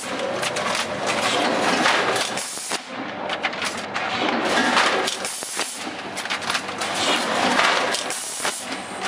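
Rotary pouch packing machine running: a dense clatter of clicks and knocks over a hiss, swelling and easing about every second and a half.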